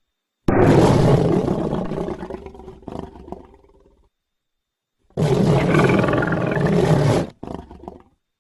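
Two roars from the Sharptooth film dinosaur. The first starts suddenly and fades out over about three seconds; the second, shorter, cuts off abruptly, with a brief growl after it.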